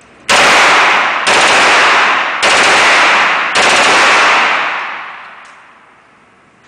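MP5 submachine gun firing four bursts of automatic fire in quick succession, each about a second long, the last dying away over a second or so.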